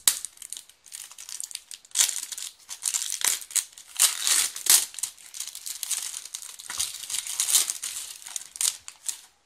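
Cellophane shrink-wrap crinkling and tearing as it is pulled off a small cardboard box, in irregular crackles that get louder about two seconds in.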